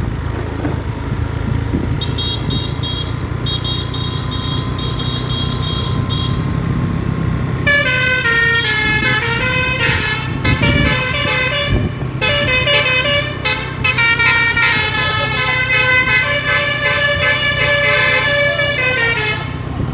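Bus's Basuri telolet horn playing a stepping multi-note melody for about twelve seconds, starting about eight seconds in, over the steady low running of the bus engine.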